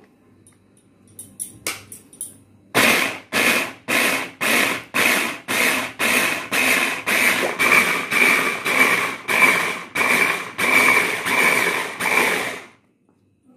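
Vegetable chopper whirring in short, even pulses, about two a second, coarsely crushing tomatoes and green chillies; a few light clicks come before it starts.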